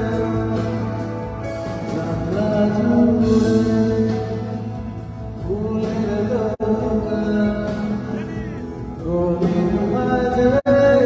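Band music with a man singing over a steady bass line and drums; the sound cuts out for an instant twice.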